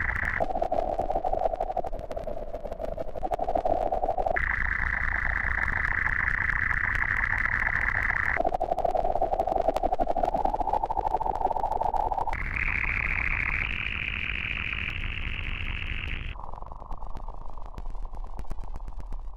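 Digital glitch noise sound effect: a band of static hiss that jumps abruptly between a higher and a lower pitch about every four seconds, over a steady low hum and constant fine crackling clicks.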